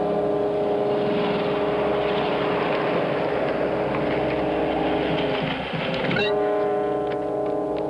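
A train horn sounding a steady held chord over the rumble and clatter of a train. About six seconds in, a rising sweep and music take over.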